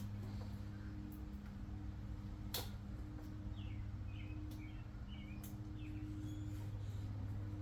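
Steady low electrical hum, with faint bird chirps several times near the middle and a single sharp click about two and a half seconds in.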